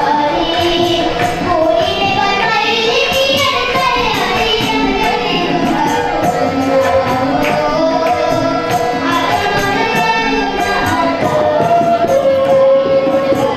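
A young girl singing a melody into a microphone while she plays a harmonium, its held notes sounding under her voice, with light percussion keeping time.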